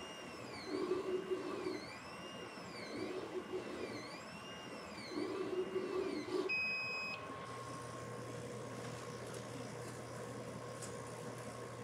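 Monport Reno Pro CO2 laser cutter's stepper motors whining as the head traces a circle cut, the pitch rising and falling over and over. About six and a half seconds in, the machine gives a short steady beep, typical of the controller signalling the job is done. A low steady hum follows.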